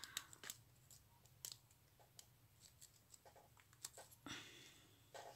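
Near silence broken by faint, scattered small clicks and light rustles of hands handling paper and foam craft pieces, with a slightly longer rustle near the end.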